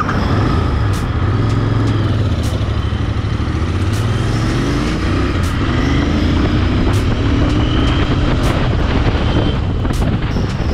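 Royal Enfield Interceptor 650's 648 cc air/oil-cooled parallel-twin engine pulling away from a standstill and accelerating, its note rising again and again as it climbs through the gears.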